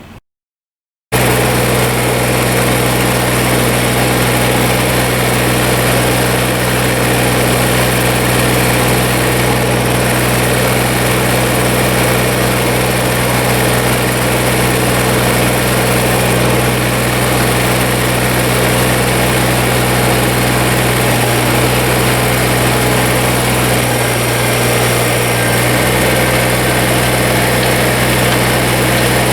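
Kubota BX24 compact tractor's three-cylinder diesel engine running steadily at idle, starting after a moment of silence.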